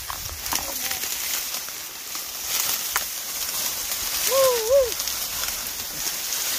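Dry cattail stalks rustling and crackling as people push through them on foot. About four seconds in comes a short wavering call that rises and falls twice.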